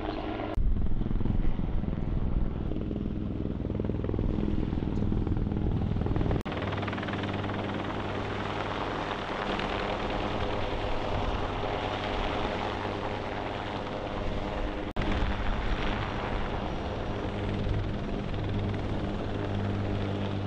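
Bell UH-1Y Venom and AH-1 Cobra military helicopters flying past: steady rotor and turbine engine noise that jumps abruptly in level at cuts about half a second, six and fifteen seconds in.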